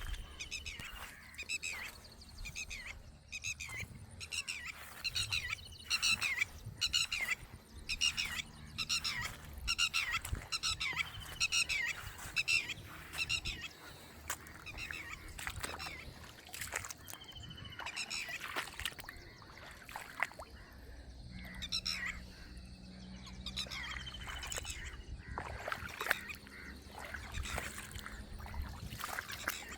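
Birds calling outdoors: many short chirps, some falling in pitch, repeated rapidly through the first half and more sparsely later. A faint low steady hum runs beneath them for part of the time.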